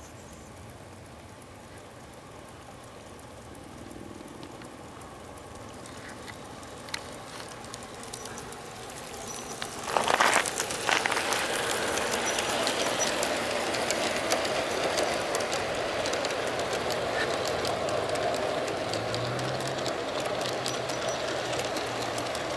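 G scale Bachmann Consolidation model steam locomotive and its cars rolling along outdoor track, growing steadily louder as the train approaches, with wheels clicking over the rail joints. A brief loud rush of noise comes about ten seconds in, and then the train runs on steadily close by.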